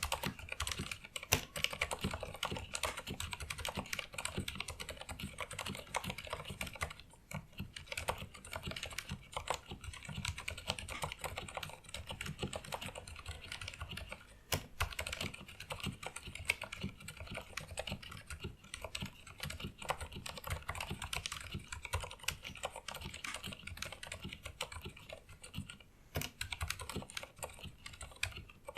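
Fast, continuous typing on a Filco Majestouch 2 mechanical keyboard with Cherry MX Pink silent linear switches, a dense run of keystrokes broken by a couple of brief pauses.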